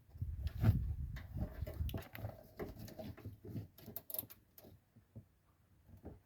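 Irregular clicks, light metallic knocks and rustling of a hand tool being fitted and worked on a tight bolt; busier in the first couple of seconds, then scattered sharp clicks.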